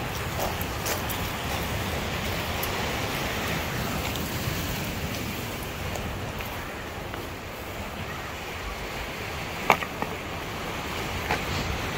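Steady rush of wind and surf, with a few sharp clacks of stones knocking together, the loudest nearly ten seconds in.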